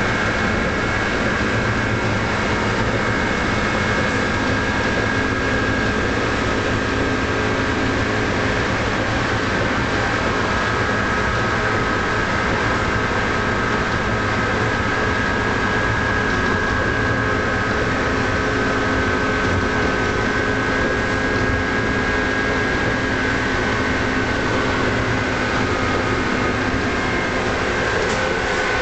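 Electric tram running at steady speed on open track, heard from inside the car: a continuous rumble of wheels on rails with a steady high whine over it.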